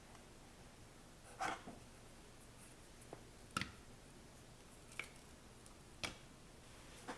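A handful of soft, separate taps and clicks as a block of butter is worked off its wrapper into a plastic mixing bowl with a silicone spatula, the loudest about a second and a half in and again about three and a half seconds in.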